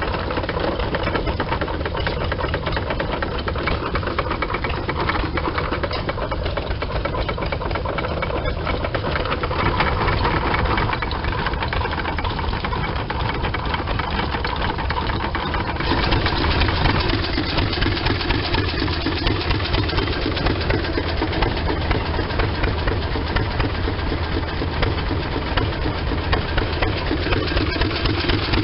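Fairbanks-Morse oil tractor's engine running steadily while driving a long flat belt. It grows louder about halfway through, with a regular pulsing beat.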